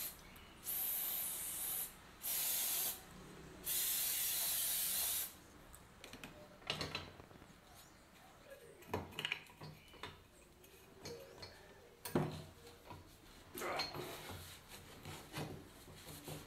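Aerosol can with a red extension straw spraying penetrating oil onto a rusty cast-iron charcoal iron in four hissing bursts over the first five seconds, the last and longest about a second and a half. After that, scattered light clicks and knocks of metal parts being handled, with one sharper knock about twelve seconds in.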